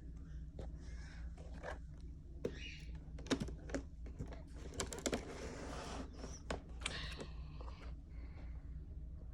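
Taps, clicks and rustling of a cardboard model-airplane box being handled and opened, with a longer scraping rustle about five seconds in, over a steady low hum.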